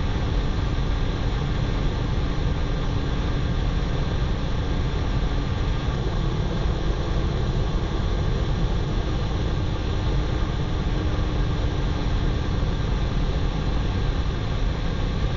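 Steady, deep roar of a twin-engine F/A-18 jet in flight, mixed with the rush of air over a camera mounted on the outside of the aircraft.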